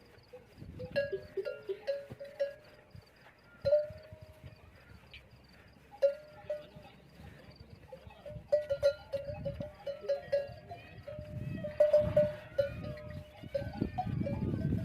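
Bells hung on camels clanking and ringing unevenly as a herd moves, with many irregular strikes, some bunched close together. A low rumble builds in the last few seconds.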